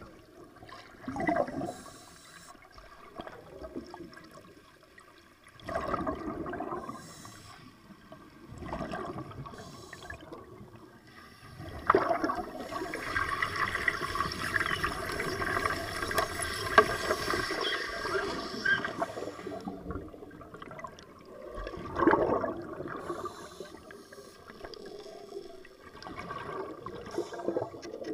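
Underwater bubbling in surges every few seconds, typical of a diver's exhaled air. In the middle there is a longer stretch of hissing and bubbling as an underwater cutting torch burns through the steel of a ship's old bow thruster grille.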